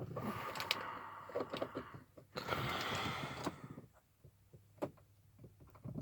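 Small clicks and scrapes of an ignition switch being worked by hand into a steering column, with two stretches of rustling hiss in the first half. The part is a tight fit and will not go in easily.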